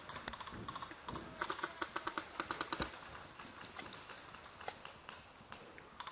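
Airsoft rifle firing a quick string of sharp, clicking shots, about seven a second for a second and a half, with scattered fainter clicks before and after.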